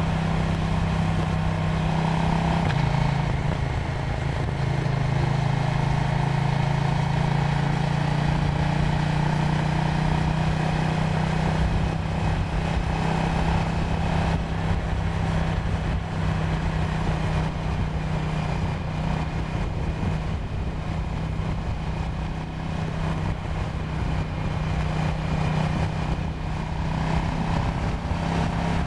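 KTM Duke 790's parallel-twin engine running steadily while riding, its note stepping lower about three seconds in. The engine tone grows weaker in the second half.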